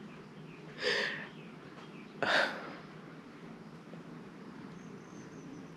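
Two short, breathy exhalations from a woman, about a second and a half apart, like sighs or scoffs, over quiet room tone.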